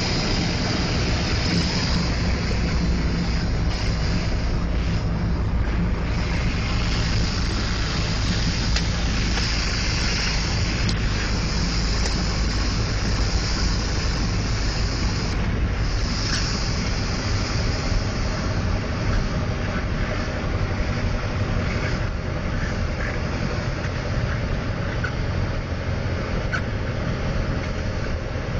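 Piper Cherokee 140's four-cylinder Lycoming engine and propeller droning steadily, heard inside the cabin together with the rush of airflow, on approach and landing. The high rushing eases a little past the middle.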